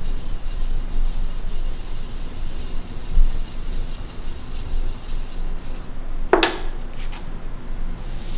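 Hand rubbing along a steel sword blade, a steady scraping rub, with one short sharp scrape a little over six seconds in.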